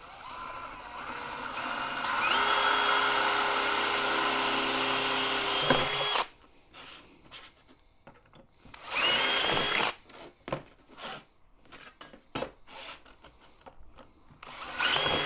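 Cordless drill with a 4 mm bit enlarging pre-drilled holes in a thin metal panel. One run of about six seconds opens with a rising motor whine and cuts off. A short second burst comes about nine seconds in, then a few light clicks, and another burst starts near the end.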